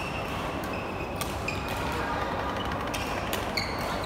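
Badminton rally in a sports hall: sharp clicks of rackets striking the shuttlecock and short high squeaks of court shoes on the floor, over a steady background of hall noise and chatter.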